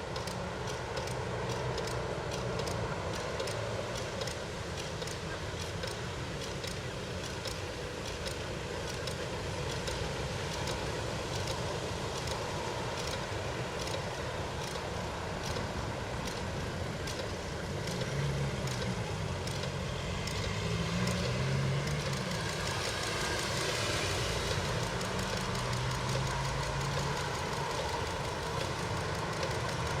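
City street traffic. A vehicle engine rises and falls in pitch as it passes, loudest about three-quarters of the way through, over steady light ticks about twice a second.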